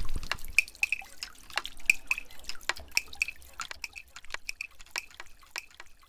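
Water dripping and plinking into a pool from decorative garden fountains: many irregular drops, several a second, each a short high plink.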